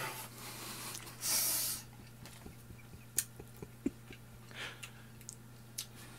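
Someone eating cup noodles with chopsticks: a loud half-second sucking intake of air a little over a second in, then scattered light clicks of the chopsticks against the noodle cup.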